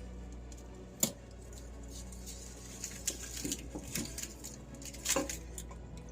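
Kitchen handling noises while cooking: a sharp knock about a second in, then a scatter of small clicks and clinks of utensils against cookware, and another knock about five seconds in, over a steady low hum.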